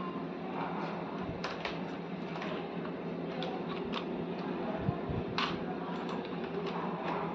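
Scattered clicks and knocks as a plastic USB keyboard and its cable are handled and set down on a laptop, over a steady low hum.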